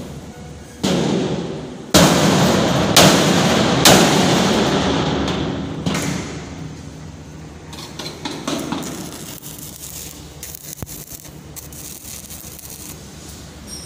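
Hammer blows on the steel shell of a large tank: four hard strikes in the first four seconds, each ringing on afterwards. In the second half, an arc-welding arc crackles irregularly and more quietly.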